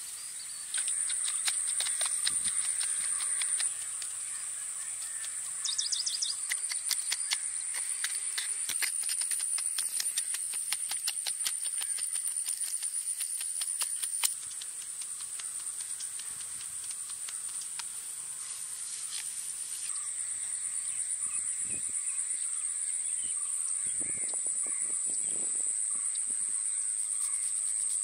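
Outdoor field ambience: a steady high-pitched insect drone, with occasional bird calls.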